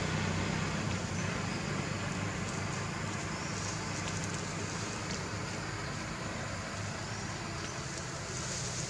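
Steady background noise with a low hum, the kind a distant engine or traffic makes, and a few faint high ticks.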